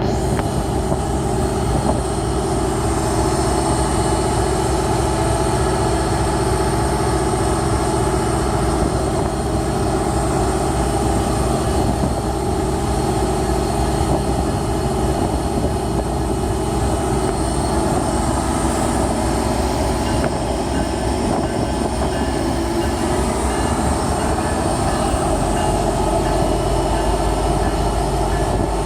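GO Transit commuter train hauled by an EMD F59 diesel-electric locomotive, running steadily with a continuous engine drone and rail noise.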